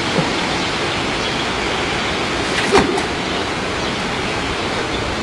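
Steady rushing hiss, with a single brief knock near the middle.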